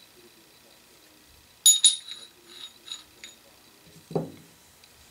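Steel jaw of a three-jaw lathe chuck clinking against the chuck's steel scroll. Two sharp metallic clinks with a ringing tone come just under two seconds in, then a few lighter taps. A duller knock follows about four seconds in as the jaw is set down.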